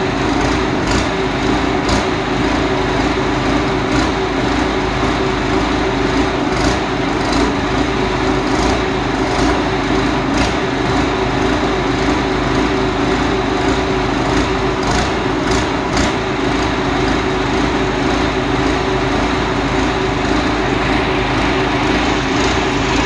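Tracked combine harvester's engine running steadily while the machine stands still: a loud, even drone with a few faint clicks over it.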